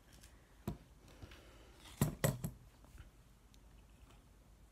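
A few light clicks and knocks of small hard doll parts being handled and posed, a 3D-printed jointed fox cub figure moved on a doll's lap; the loudest pair comes about two seconds in.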